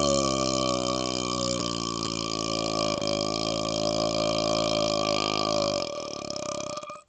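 A man's single long, drawn-out burp at a low, steady pitch, recorded close to a laptop microphone. Near the end it turns rougher and quieter, then cuts off abruptly.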